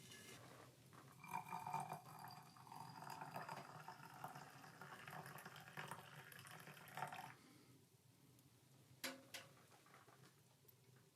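Liquid being poured into a container for about six seconds, followed by a single sharp click.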